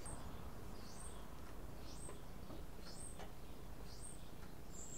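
A bird calling faintly in the background, a short rising chirp about once a second, over a steady low hum.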